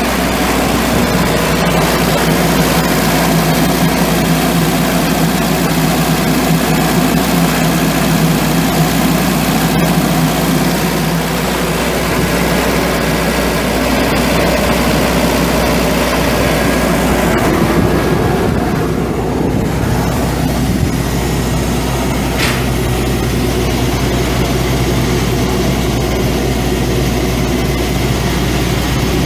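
An engine idling steadily. About two-thirds of the way through the high hiss drops away, leaving mostly the low hum.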